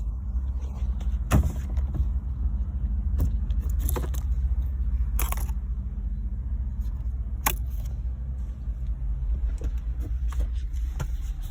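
Scattered sharp clicks and small rattles of steering-wheel and column parts being handled, over a steady low rumble.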